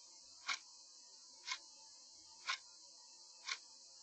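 Even ticking, one sharp tick a second, like a clock, over a faint steady hiss.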